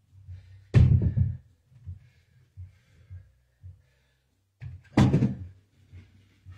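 Two heavy thuds about four seconds apart, as a plate-loaded barbell knocks down against the rack of a home weight bench during a lifting set.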